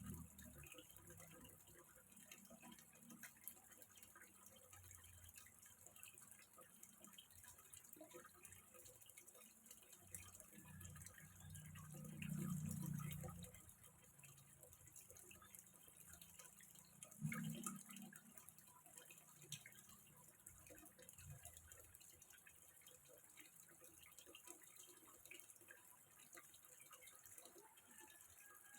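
Faint trickling water in a small fish pond, with scattered drips. Two low rumbles stand out: a longer one about twelve seconds in and a short one about seventeen seconds in.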